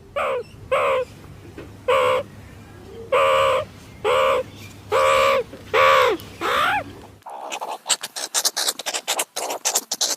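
An animal gives a series of about eight short, harsh, caw-like calls, each rising and falling in pitch. About seven seconds in, these give way to a rapid run of scratching, crackling clicks.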